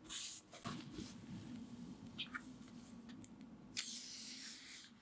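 Paper pages of a book rustling as hands turn and smooth them. There is a louder swish at the start and another about four seconds in, with a few small paper ticks between.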